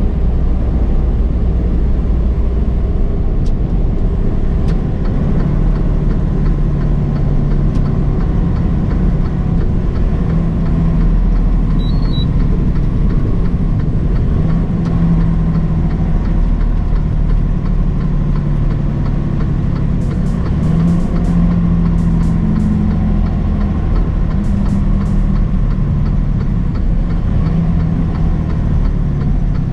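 Semi-truck driving at highway speed, heard from inside the cab: a steady low engine drone and road rumble, with the engine's hum wavering slightly in pitch.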